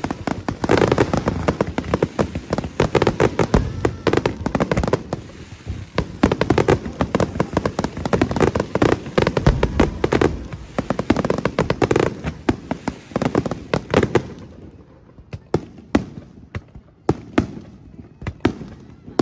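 Fireworks finale barrage: a dense, rapid run of shell bursts and crackling. About fourteen seconds in it thins out to scattered pops and crackles.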